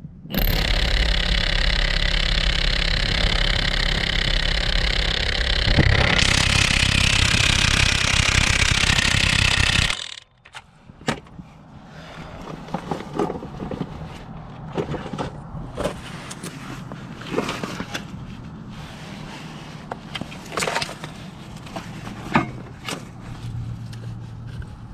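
Milwaukee M18 Fuel 2767 half-inch cordless impact wrench hammering on a 19 mm Honda crank pulley bolt through a heavy crank bolt socket for about ten seconds. The sound grows louder and harsher about six seconds in, then stops suddenly. It is followed by scattered clicks and clinks as the tool and socket are handled on gravel.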